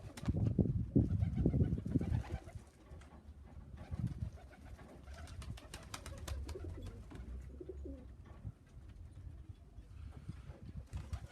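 Racing pigeons cooing in the loft, loudest in the first couple of seconds, with scattered light clicks in between.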